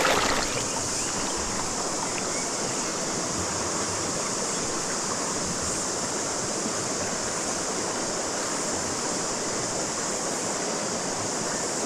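River water rushing steadily, with a constant high-pitched cicada chorus over it.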